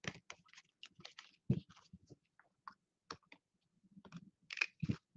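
Trading cards in rigid plastic holders clicking and tapping against one another and on a tabletop as they are sorted by hand, with a louder knock about a second and a half in and two more near the end.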